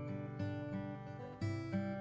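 Background instrumental music on acoustic guitar, notes ringing with a fresh chord struck late.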